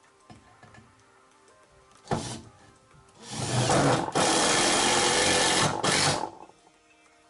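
Handheld power tool run in bursts: a short burst about two seconds in, then a loud steady run of about three seconds, stopping briefly twice.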